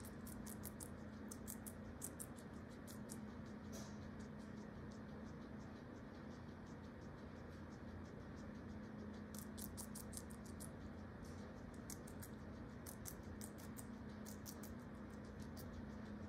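A guinea pig chewing food: quick runs of small, sharp clicks, one from the start to about three seconds in, another at about nine to ten seconds, and a third at about thirteen seconds, with quieter gaps between. A steady low hum runs underneath.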